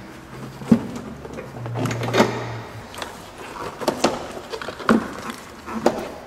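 Plastic air filter housing and ribbed rubber intake duct being handled and pushed into place: a handful of separate knocks and clicks about a second apart, with a low hum underneath in the first half.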